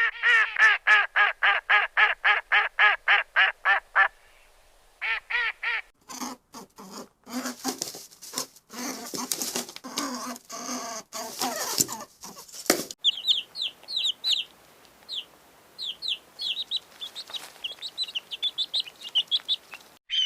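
Bird calls in three runs. First come rapid, evenly repeated calls, about four a second, for about four seconds, with a short burst after them. Then a noisy, ragged stretch of flapping and harsh calls. Then, from about two-thirds of the way in, quick high chirps.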